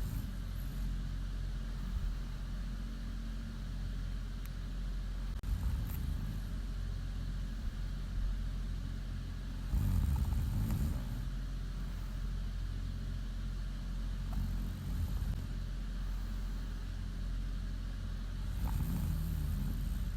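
A woman snoring in her sleep: low snores with airy breaths about every four to five seconds, loudest a little past the middle, over a steady low hum.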